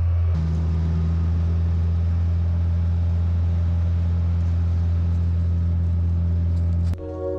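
An engine running steadily at a constant speed, a low, unchanging drone. It cuts off suddenly near the end as mallet-percussion music comes in.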